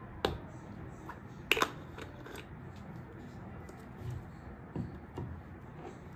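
Skincare bottles handled on a desk: a sharp click from the plastic bottle's cap just after the start, two louder clicks about a second and a half in, and softer knocks as the bottles are moved near the end, over a faint steady hum.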